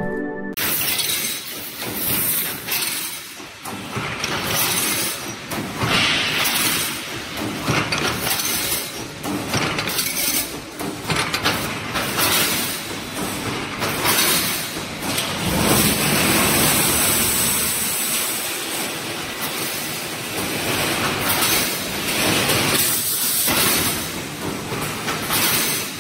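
Automatic wire mesh welding machine for 3–6 mm steel wire running: continuous metallic clanking and rattling, with many sharp irregular clanks as the wires are welded and the welded mesh is moved along the machine.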